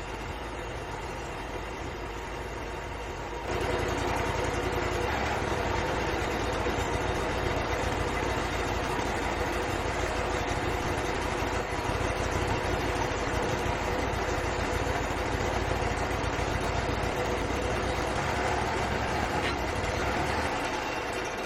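Engine of a Wood-Mizer LT35 portable sawmill running steadily. About three and a half seconds in it jumps louder, as if throttled up or put under load. It holds there and then winds down at the very end.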